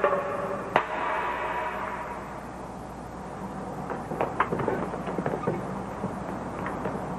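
Empty metal beer can clattering to rest on a tiled floor, with one sharp clink about a second in. Around the middle comes a quick scatter of lighter knocks and clicks.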